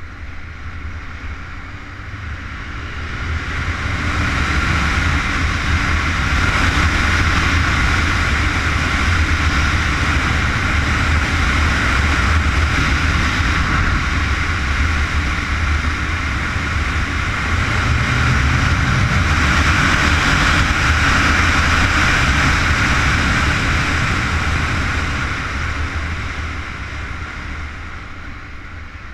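Wind rush on an onboard camera mixed with the engine of a Honda CBR919RR sport bike on track, swelling as the bike accelerates about three seconds in, easing briefly mid-way, building again, then dropping away near the end as it slows for a bend.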